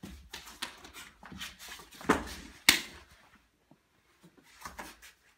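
Hands and forearms slapping and tapping in a fast partner flow drill, with two heavier thuds about two and three seconds in as a partner is taken down onto a foam mat. A few soft taps and shuffles follow in a quieter stretch.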